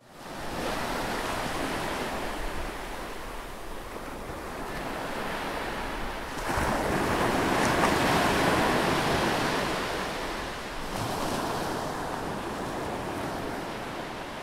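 Ocean surf: waves washing in, one swelling louder about six and a half seconds in and another about eleven seconds in, then fading away.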